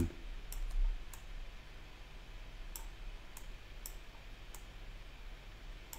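Computer mouse clicking: about eight light, separate clicks spread unevenly over a low steady hum.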